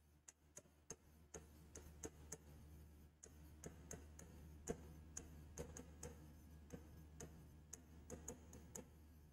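Faint, irregular clicks and taps of a stylus on a digital whiteboard as words are handwritten, the strongest about halfway through.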